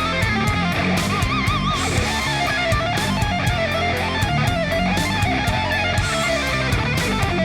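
Background music: an electric-guitar rock track with bass and a steady beat.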